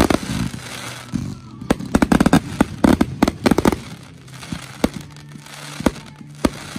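Aerial fireworks going off: sharp bangs and crackling, with a rapid barrage of reports about two to four seconds in, then sparser single bangs.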